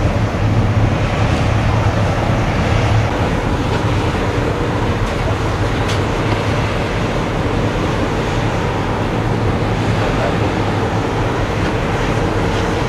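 Steady low drone of ship engines and machinery running, with an even hiss over it.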